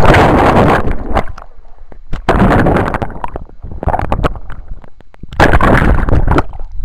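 Water splashing and churning against a waterproof camera held by a person in the water, in several loud rushes about a second long each, with quieter gaps between.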